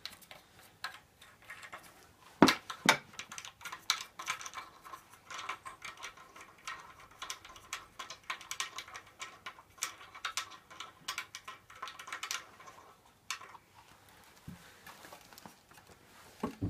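Rustling handling noise with scattered light clicks, and two sharp knocks close together about two and a half seconds in.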